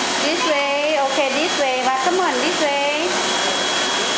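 Vacuum cleaner running steadily. Over it, a high voice calls out with rising and falling pitch for about three seconds, without clear words.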